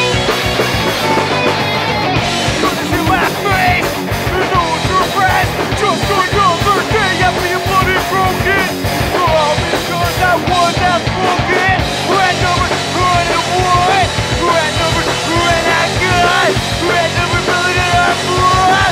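Rock band playing live: drum kit, bass guitar and electric guitars, with a wavering lead line on top from a few seconds in.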